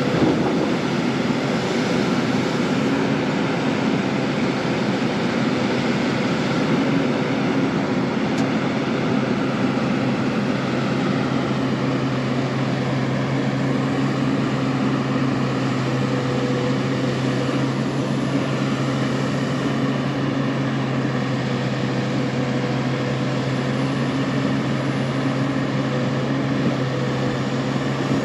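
Large crawler excavator's diesel engine running at a steady speed, an even low hum with no knocks or impacts.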